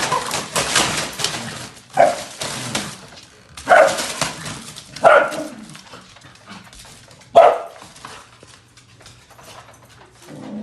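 A dog barking, about four single barks a second or two apart.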